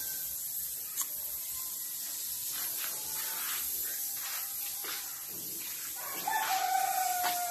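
A rooster crows once, a long call starting about six seconds in and sliding slightly down in pitch, over a steady high hiss and a few faint taps.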